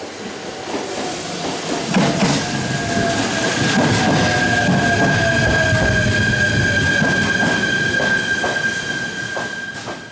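Shinano Railway electric train arriving and slowing past the platform. Its motor whine falls slowly in pitch as it brakes, the wheels click over rail joints, and a steady high squeal sets in about two seconds in and holds to the stop.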